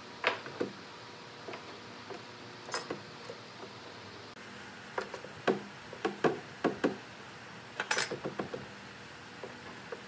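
Scattered light knocks and clicks of a metal square and marking tool being set against and handled on a solid-wood box on a wooden workbench, over a faint steady hiss. The taps come irregularly, busiest in the second half.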